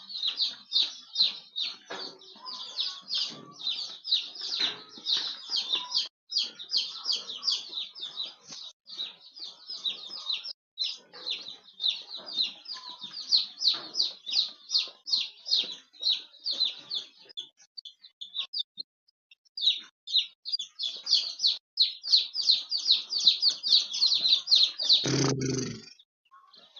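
A flock of young ISA Brown pullets peeping continuously in rapid high chirps, with a brief lull about two-thirds of the way through. Near the end there is a single dull thump.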